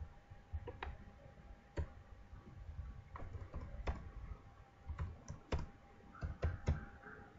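Computer keyboard being typed on: sharp single keystroke clicks at slow, irregular intervals, over a faint steady hum.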